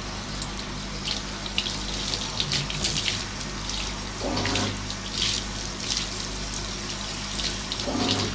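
Handheld bathtub shower head spraying water onto a dog's wet coat, rinsing off shampoo and dirt, with an uneven spatter as the spray moves over the fur and splashes into the tub.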